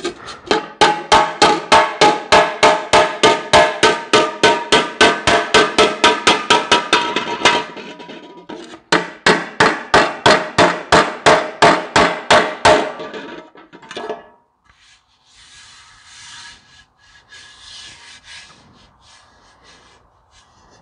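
A hammer beats a dented sheet-metal tractor air cleaner cover against a cast-iron differential housing used as an anvil, straightening the dents. It strikes in two fast, even runs of about five blows a second, with a short break between them, and is followed by quieter handling of the cover.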